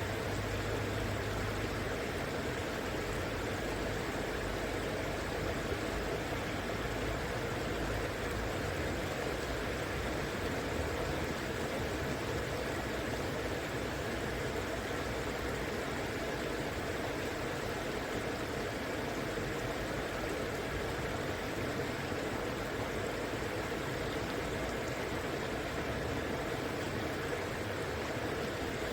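River water flowing steadily, a continuous rushing noise with no change in level. A low hum sits under it for the first second and a half, then stops.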